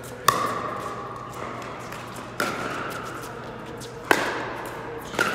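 Pickleball paddles hitting a plastic pickleball back and forth in a rally. Four sharp pops come about two seconds apart, and each one rings briefly and fades in the large hall.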